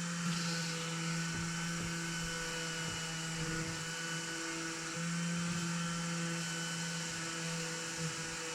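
Steady hum of a small electric motor running continuously, like a power tool, getting a little louder about five seconds in. A few faint knocks under it.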